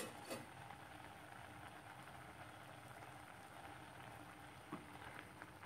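Oil-free fish curry simmering in an open pan: faint steady bubbling with small scattered pops. Two short clicks right at the start.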